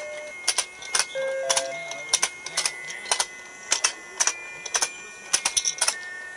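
Battery-operated rotating fishing game toy running: a simple electronic tune plays a few held beeping notes while the plastic fish and turntable clack with sharp clicks, about three or four a second at uneven spacing.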